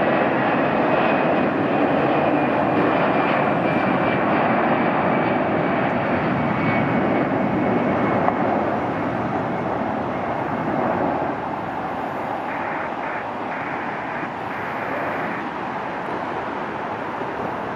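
Airbus A320-214's twin CFM56 turbofan engines at takeoff power as the airliner rolls down the runway and lifts off: a steady dense jet noise with a faint high whine that slides slightly lower in pitch as it passes, easing a little after about eleven seconds as it climbs away.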